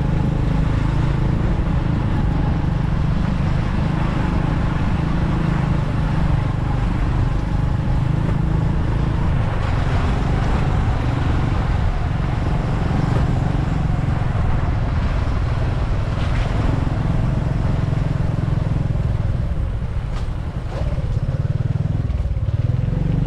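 A motorbike running steadily at low road speed, heard from on board, with heavy wind rumble on the microphone; the rumble eases briefly near the end.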